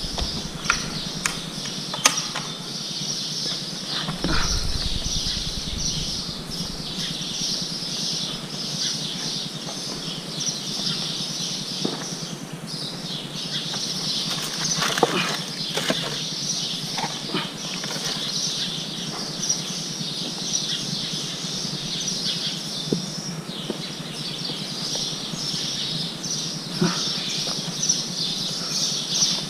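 A steady high-pitched chirring that breaks off briefly twice, with scattered clicks and scrapes of footsteps on rock during a climb.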